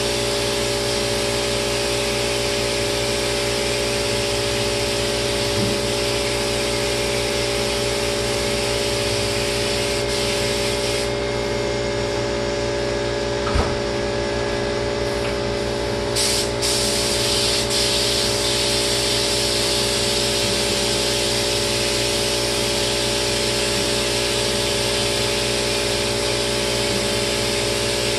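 Spray gun hissing steadily as lacquer is sprayed onto kitchen cabinets, over the steady drone of the sprayer's motor. The hiss thins out for a few seconds near the middle, with one sharp click, while the motor keeps running.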